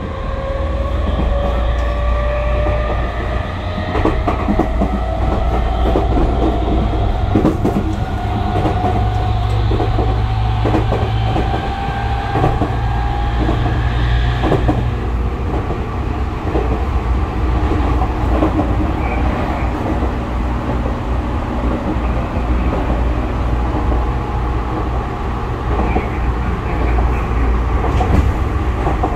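Tokyu 5000 series electric train heard from inside the car. The traction motors' whine rises steadily in pitch as the train accelerates and stops about halfway through. The wheels then run on with a low rumble and clacks over the rail joints.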